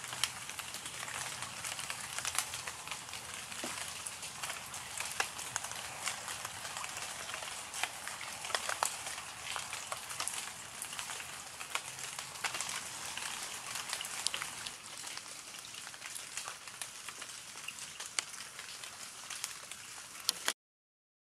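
Rain falling: a steady wash of noise dotted with many small drop ticks, cutting off abruptly near the end.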